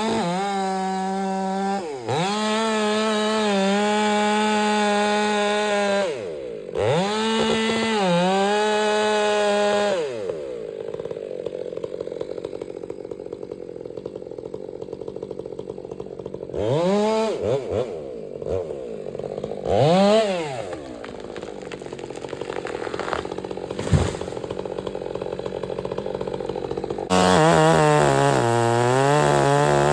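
Two-stroke chainsaw running at full throttle during a felling cut, its note dropping off briefly a few times. About ten seconds in it falls back to a low idle with short blips of throttle, then near the end it is at full revs again.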